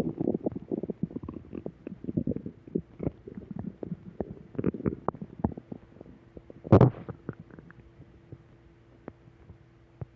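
Stomach growling: irregular gurgles and bubbling pops, densest in the first half, with one loud gurgle about two-thirds of the way through, then only scattered faint pops.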